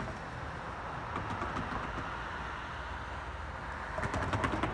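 Steady road traffic noise as a car drives past, with a brief burst of rapid clicks near the end.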